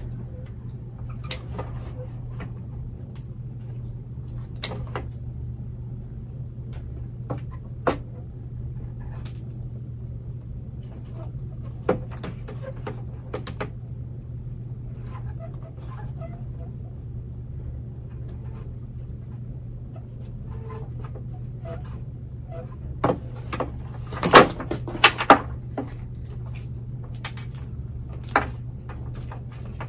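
Pruning shears snipping through plastic flower pots, the plastic squeaking, creaking and snapping in scattered clicks, with a cluster of louder snaps and knocks about three-quarters of the way through. A steady low hum runs underneath.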